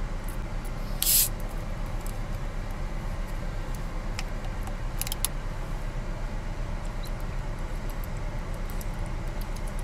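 Short hiss of a plastic bottle of carbonated orange soda being cracked open, about a second in, with a few sharp plastic clicks of the cap a few seconds later, over a steady low rumble inside the car.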